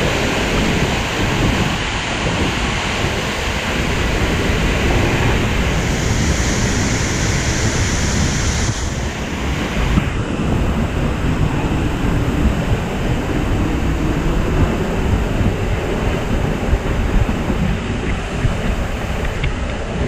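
Seljalandsfoss waterfall close by: a steady rushing of falling water, with wind and spray buffeting the microphone. The high hiss thins a little about halfway through.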